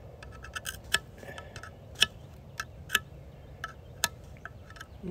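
Irregular sharp metallic clicks and ticks from the drive sprocket and clutch drum of an Echo CS-7310 chainsaw as they are worked by hand. The drum is stiff and gummed up with packed wood chips that are being cleared out.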